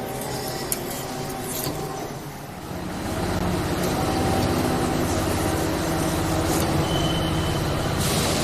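CNC gantry V-groove machine running, with a steady low hum and rumble that gets louder about three seconds in. There is a sharp click under a second in, and a hiss starts near the end.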